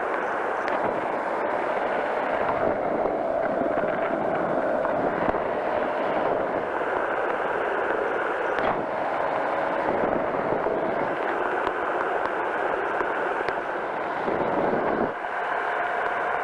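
Powered parachute engine and propeller running steadily in flight: a constant rush of noise with a faint steady hum under it, dipping briefly near the end.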